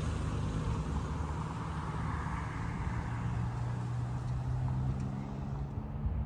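A road vehicle running with a steady low engine hum, and a rush of traffic noise swelling about two seconds in.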